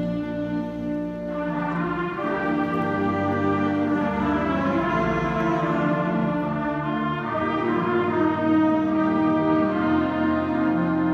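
School concert band playing sustained chords, the sound growing fuller about a second and a half in.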